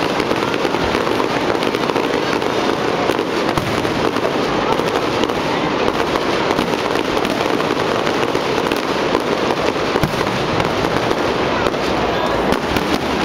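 Fireworks display in a dense barrage: a continuous run of rapid bangs and crackles with no pauses between them.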